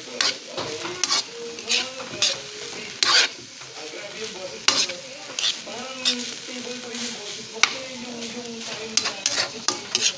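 A spatula scraping and clacking against a wok as shredded bamboo shoots are stir-fried, in irregular strokes over a steady sizzle.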